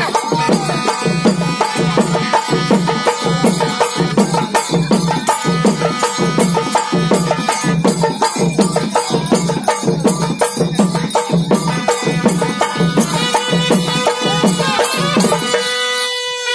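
Traditional Tamil folk music for a temple possession dance: drums beating a steady rhythm of about two strokes a second under a held high tone. The drums drop out near the end.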